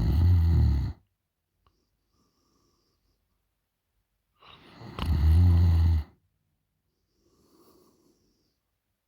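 A woman snoring loudly with her mouth open: a low, fluttering snore that fades out about a second in, and a second, longer snore about four and a half seconds in. A faint breath comes between them near the end.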